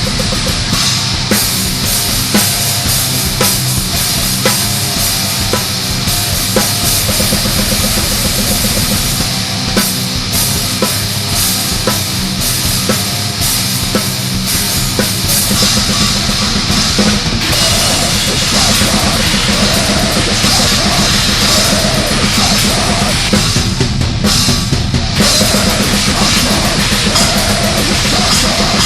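Extreme metal demo recording: fast drum kit with dense bass-drum strokes under distorted guitars, with the guitar riff coming forward from about seventeen seconds in.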